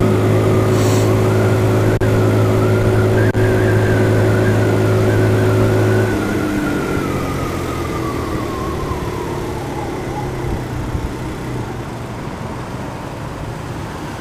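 Motor scooter engine running at a steady high speed, then dropping abruptly to a quieter, lower note about six seconds in. A thinner whine above it sinks in pitch and fades away.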